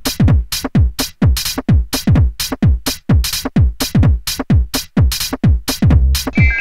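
Electronic dance music with a fast, steady drum-machine beat: deep kick drums and crisp hi-hats, ending in a held deep bass note.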